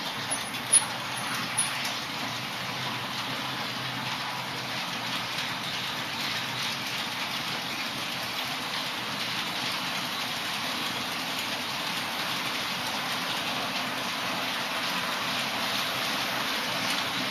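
HO-scale model trains running on the layout's track: a steady hissing rattle of small metal wheels on rails, with two sharp clicks in the first two seconds.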